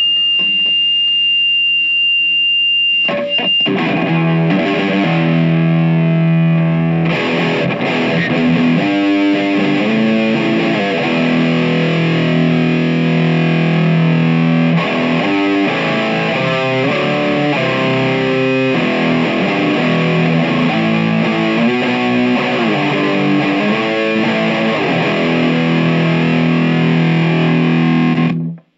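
Distorted electric guitar played through a Marshall MG15MS II micro stack fitted with an upgraded Celestion speaker: chords and riffs with long held notes, cutting off just before the end. A high, steady tone sounds over the first three seconds.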